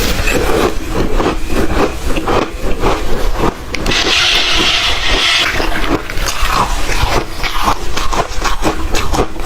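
Close-miked crunching and chewing of ice, a dense run of sharp crackling crunches, with a brief hissing rush about four seconds in.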